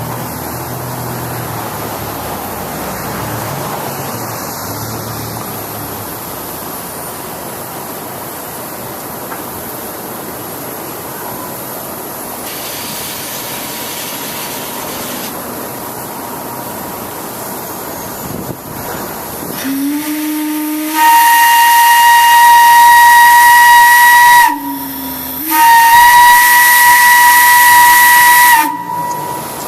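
Steady rushing noise for about twenty seconds, then a whistle blows twice. Each blast lasts about three and a half seconds, with a short break between them. Each is a loud, steady high note with overtones, coming in with a brief lower note.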